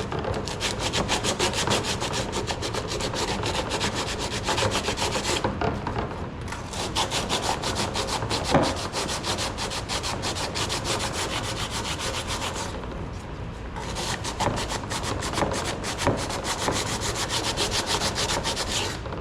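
Hand sanding with sandpaper inside a cedar-strip kayak's bow: quick back-and-forth rubbing strokes, pausing briefly twice. It is a light scuff of the surface so that an epoxy fill will stick.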